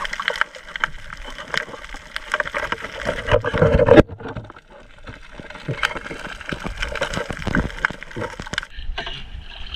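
Water sloshing and gurgling around an underwater camera, with scattered clicks and knocks. A louder surge builds and cuts off suddenly about four seconds in.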